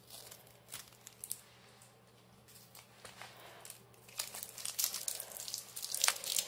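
Packaging being handled and unwrapped by hand: a few scattered crinkles and clicks, then, about four seconds in, a dense run of crinkling.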